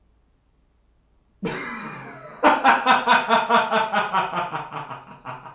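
A man bursting into loud laughter about a second and a half in: one drawn-out first burst, then a run of rapid ha-ha bursts at about four a second that slowly fade.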